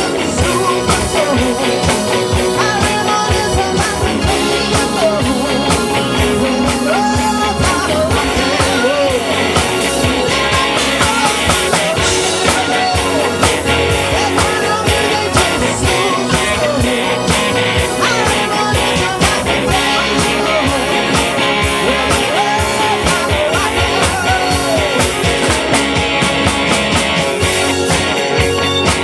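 Live rock band of electric lead guitar, drum kit and keyboards playing an upbeat rock and roll song at a steady beat, with a woman singing lead.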